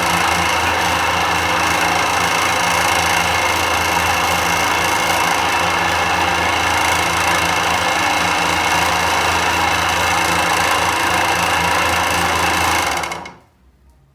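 Electric motor running steadily with an even hum and whine, then switched off and falling away quickly about 13 seconds in.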